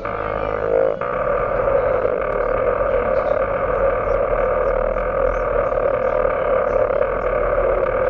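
Harsh electronic noise music: a dense, steady, distorted drone with strong mid-range bands and scattered high crackles. A swelling tone rises in the first second and cuts off abruptly.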